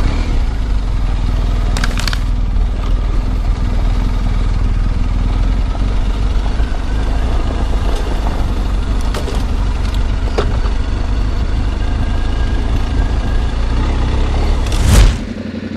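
BMW R 1250 GS boxer-twin engine running steadily at low revs as the bike rides down a steep track of loose stones, with a few sharp knocks along the way. A brief loud rush of noise near the end.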